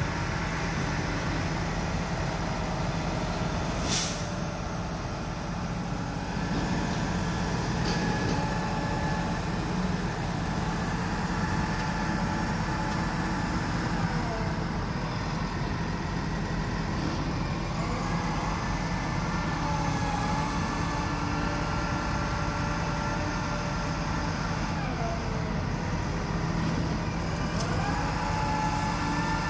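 A utility boom truck's engine and hydraulics running steadily, with whining tones that rise and fall several times as the boom is worked. A single sharp click about four seconds in.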